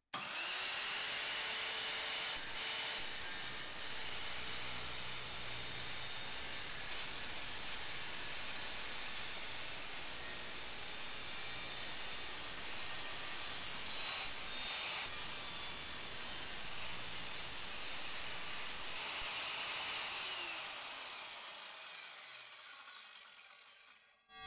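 Evolution R185SMS sliding mitre saw running with a steady whine as its 185 mm multi-material blade is pulled slowly down through a piece of aluminium. About twenty seconds in the motor is switched off and the blade winds down, its whine falling in pitch and fading out.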